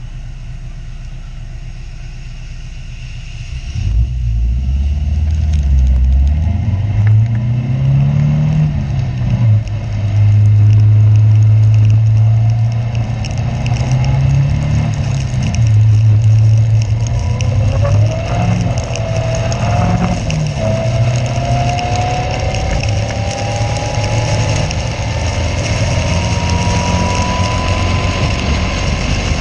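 Caterham race car's engine heard from onboard: a steady low running note, then from about four seconds in much louder as it is driven hard, the pitch rising and falling with the revs. A whine climbs slowly in pitch through the last ten seconds or so.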